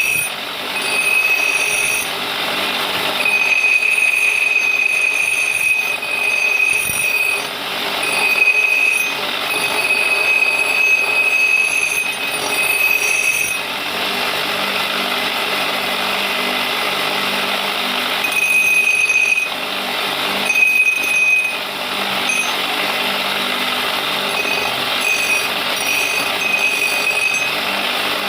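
Power machinery working steel to forge a stone pry bar: a steady mechanical din with a high squealing tone that comes and goes in stretches of one to a few seconds. It is louder in the first half and settles to an even level about halfway through.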